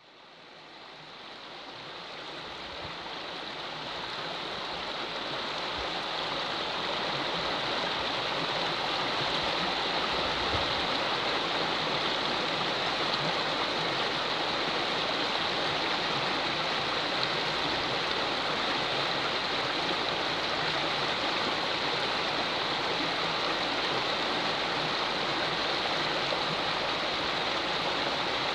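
Water rushing over a river weir: a steady rush that fades in over the first several seconds and then holds even.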